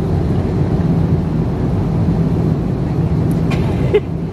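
Steady low drone of an airliner cabin in flight, with a brief knock near the end.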